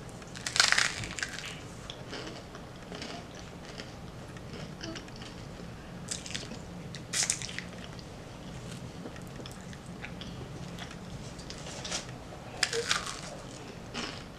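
A crunchy bite into toasted bread spread with mashed avocado about half a second in, then close-up chewing with a few more short crunches, a louder one near the end.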